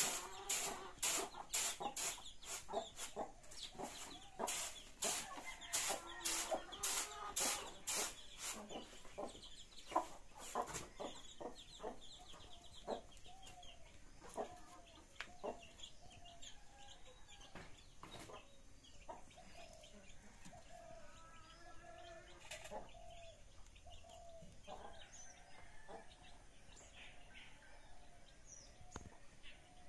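Rhythmic scratchy strokes of a straw broom sweeping a dirt yard, about two a second, for roughly the first ten seconds, with chickens clucking. After the sweeping stops, the hens' clucking goes on by itself.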